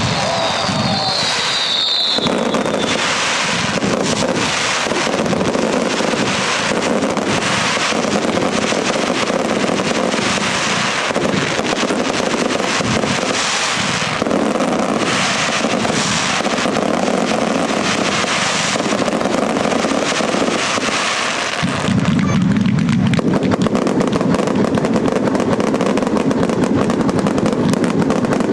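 Daylight fireworks display: a rapid run of bangs and crackles, with a couple of whistles at the start. About three-quarters of the way through it turns into a dense, unbroken crackle.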